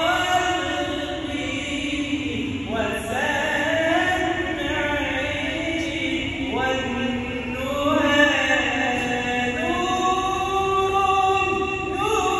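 Male voice chanting an Islamic ibtihal, a devotional supplication sung in long held, ornamented notes that slide from pitch to pitch.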